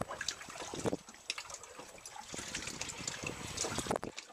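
Seawater sloshing and splashing irregularly against the hull of a small boat drifting at sea.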